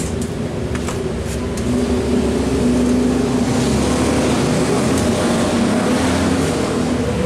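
A steady motor drone with a low hum, louder from about two seconds in, and a few light clinks of square steel tube pieces being handled in the first couple of seconds.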